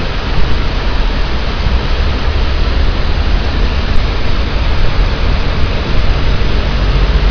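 Heavy rain pouring down in a steady, loud, even hiss, with a deep rumble underneath.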